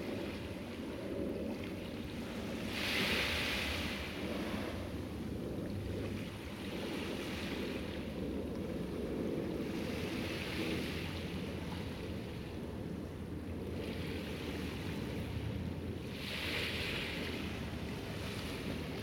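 Sea waves washing onto the shore, a hiss swelling every three to four seconds over a steady low rumble of surf, with some wind buffeting the microphone.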